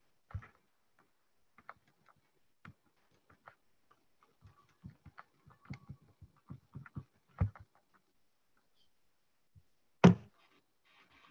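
Scattered small clicks and taps, with a louder knock about seven seconds in and a sharper thump about ten seconds in, picked up through an open call microphone in a small room.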